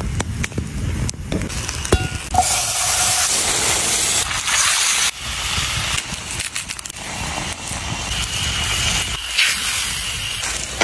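Wood campfire crackling with scattered pops, and a loud steady hiss lasting about three seconds that starts about two seconds in.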